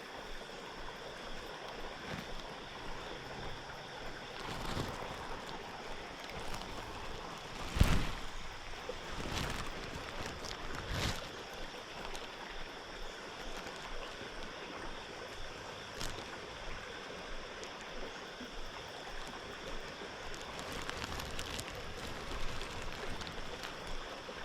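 Steady rush of flowing creek water, with a few sharp knocks, the loudest about eight seconds in.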